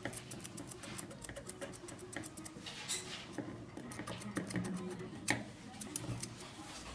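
Thinning scissors snipping through a dog's foot hair: quick runs of small crisp clicks, with a sharper single snip about five seconds in.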